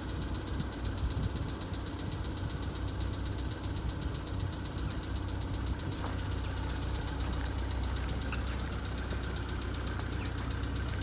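Volkswagen Polo Sedan's 1.6-litre CFNA four-cylinder engine running, about three minutes after a cold start, with a fast light ticking over its steady hum: the cold-start lifter tap that the owner puts down to the hydraulic valve lifters.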